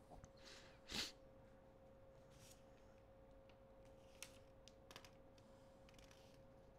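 Near silence: room tone with a faint steady hum, a short breath-like burst of noise about a second in, and a few faint clicks later on.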